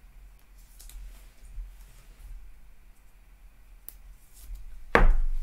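Light clicks and plastic rustles of a trading card being slid into a rigid plastic top loader, then one loud knock near the end.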